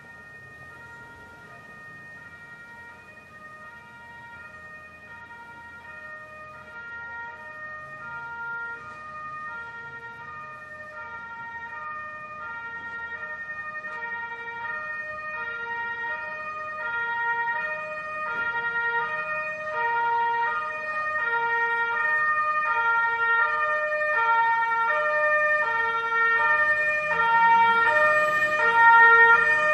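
Ambulance two-tone siren alternating steadily between a high and a low note, growing louder throughout as the vehicle comes closer. Near the end the vehicle's engine and road noise rise beneath it.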